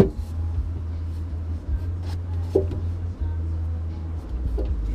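Metal wheelchair frame knocking and clattering against the car's interior as it is hauled across the front seats: a sharp knock at the start, two more later, and light rattles, over a steady low hum.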